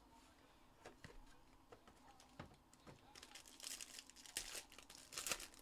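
Hands opening a sealed trading-card box: a few soft taps and clicks of cardboard, then about two seconds of crinkling and tearing of the wrapping near the end.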